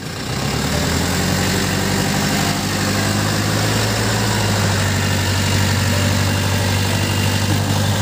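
Isuzu Panther diesel engine of an odong-odong tourist train running steadily under light load as the train reverses. A low, even hum strengthens about a second in and then holds.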